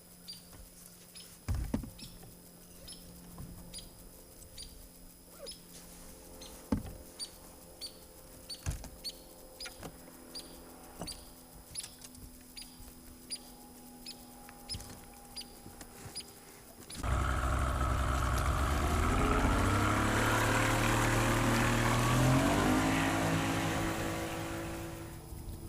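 A short high chirp repeats about twice a second over a few knocks, then about 17 seconds in a boat's outboard motor comes in loud. Its pitch rises as it accelerates, then holds steady and fades near the end.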